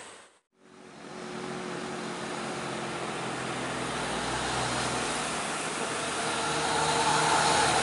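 After a brief drop-out, steady road traffic noise with a vehicle engine running fades back in, growing louder near the end as a truck passes close by.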